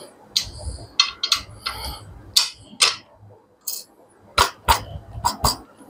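Sharp metal clicks and clinks of small hardware (washers and a nut) being handled and fitted onto a bolt of a motorcycle paddock stand's steel tube. There is short ringing early on and a cluster of clicks in the second half.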